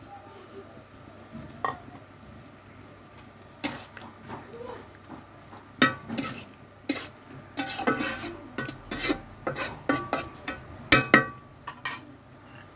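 A spatula stirring pumpkin and shrimp curry in a metal kadai, starting a few seconds in: repeated sharp clacks and scrapes of the spatula against the pan's sides and bottom.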